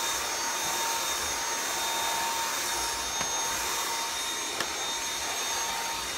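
Dyson V7 Animal+ cordless stick vacuum running steadily with its high motor whine, its mini motorized brush working into the crevice of a carpeted stair. Two light clicks come about three and four and a half seconds in.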